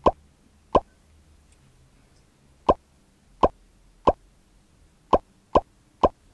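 A series of eight short cartoon-style pop sound effects, each a quick falling 'bloop', coming at irregular intervals as words pop into view on screen.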